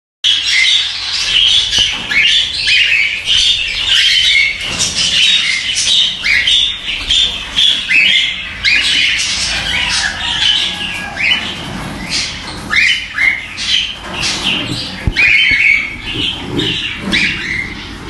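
Cockatiels calling in a rapid series of short, high squawks, about two a second.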